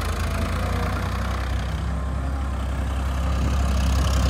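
Vehicle engine running steadily at low revs with a deep, even hum, growing a little louder near the end.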